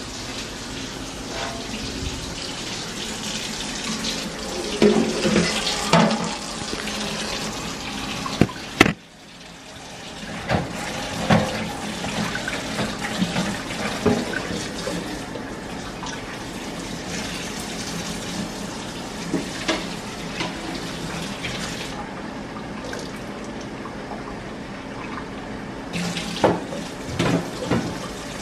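Kitchen faucet running steadily into a stainless steel sink while a round metal pan is washed, with sharp clanks and clatters of the pan against the sink several times, clustered about five seconds in, near nine seconds, and near the end.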